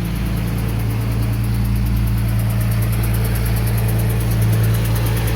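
A 2008 Ford Mustang's 4.0 V6 engine idling steadily, with a fast, even ticking over the idle. The ticking has persisted since a stripped spark plug hole was repaired with a thread kit. The owner wonders whether it comes from a hole in the exhaust or a bad PCV valve.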